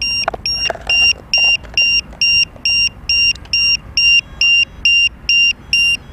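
Lipo low-voltage alarm beeping: a short, high-pitched beep about twice a second, the warning that the helicopter's 4S 2600 mAh battery is drained. There are faint handling clicks in the first second or so.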